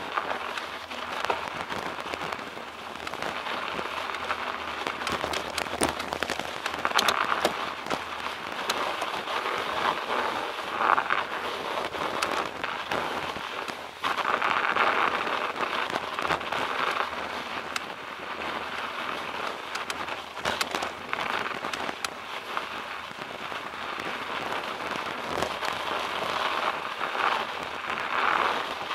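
Bicycle tyres crunching over packed snow: a continuous crackling hiss with many scattered sharp clicks, a little louder from about halfway in.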